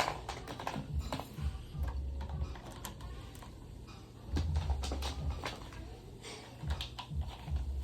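Irregular clicks, knocks and low thumps of a Lasko table fan's parts being handled and fitted back together.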